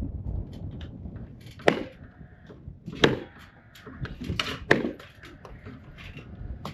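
Nails being driven into a wooden floor deck: four loud, sharp strikes at irregular intervals, two of them close together, with lighter knocks between.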